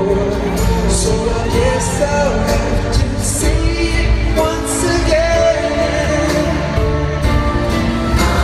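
Male vocal group singing live into microphones over an amplified pop backing track with a steady beat.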